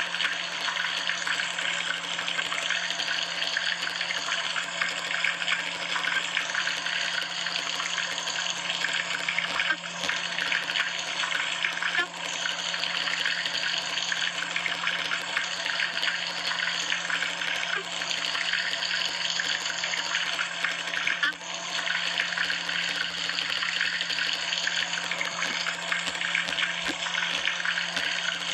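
Water running steadily, an even hiss with a low steady hum underneath.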